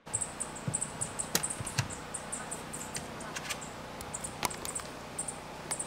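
Outdoor background with short, high-pitched chirps repeating in small clusters, and a few sharp clicks scattered among them.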